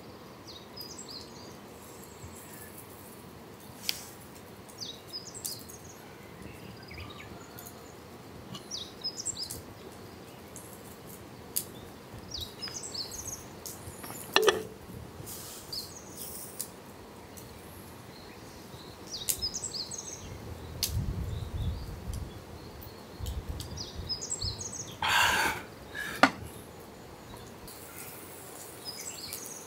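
Small birds chirping on and off over a steady outdoor background, with a few sharp clicks, a low rumble past the middle and a brief rush of noise near the end.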